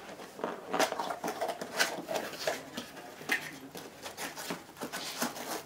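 Packaging being handled: irregular rustling and crinkling with many small clicks and taps as parts are unpacked from their box.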